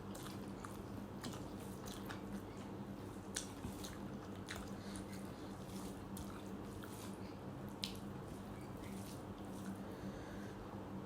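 A person chewing and eating rice with curry: soft squishing and scattered small clicks over a steady low hum.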